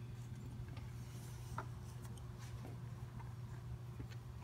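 Quiet handling noise: a few faint clicks and rubs from hands working metal engine parts around the cam sprocket and a shop rag, over a steady low hum.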